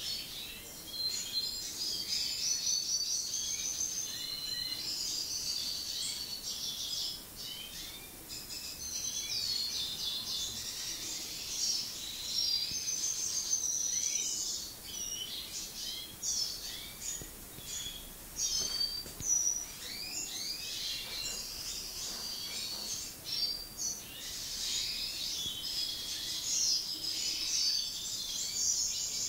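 Goldfinches (Carduelis carduelis parva) twittering and chirping without a break, a busy high-pitched chatter of quick notes that thins out in the middle and grows busier again near the end.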